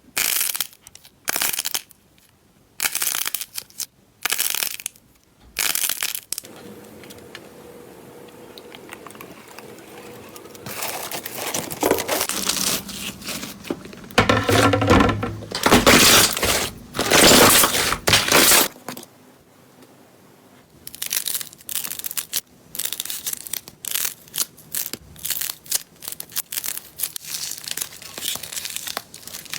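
Slime being squeezed, pressed and poked by hand, making crackling, crunching squishes: separate squeezes about once a second at first, a quieter stretch, then a louder run of squishes and, from about three quarters in, quick crackling pokes.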